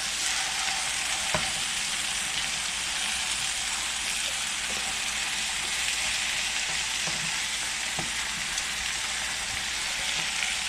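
Chicken breasts sizzling steadily as they fry in butter in a square frying pan, with a couple of light clicks of metal tongs against the pan as the pieces are turned.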